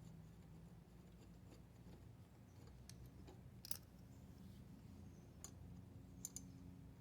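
Near silence with a few faint, scattered metallic clicks from a socket wrench backing out a carburetor mounting bolt.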